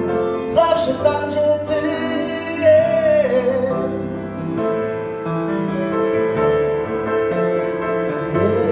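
Live grand piano accompanying a held, wavering melody note that glides down and fades about three and a half seconds in. The piano then plays the closing phrases of the ballad on its own.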